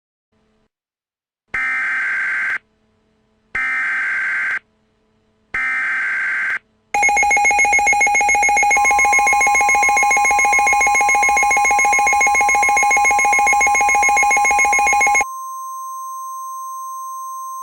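Emergency Alert System alert tones: three one-second bursts of screeching SAME header data, then a loud pulsing attention signal. About two seconds into the attention signal a steady NOAA Weather Radio warning alarm tone joins it and carries on alone after the attention signal stops, heralding a severe thunderstorm warning.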